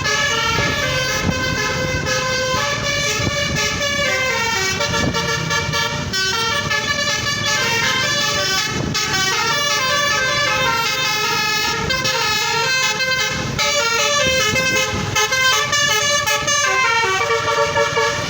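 Bus telolet horn, a multi-tone musical air horn, playing a tune in quick stepping notes over a low engine rumble. The notes get louder and choppier in the last few seconds.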